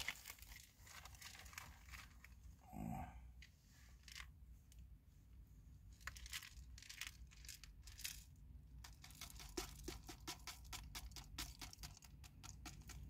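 Faint rustling and handling of food and wrappings, then from about nine seconds in a quick run of small rattling ticks as a jar of dried spice flakes is shaken over a taco.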